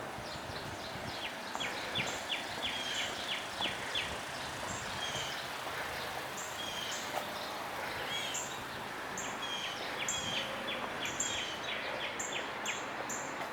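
Small birds chirping in quick repeated calls, with a fast run of chirps about a second and a half in and again near the end, over a steady background of distant city traffic noise.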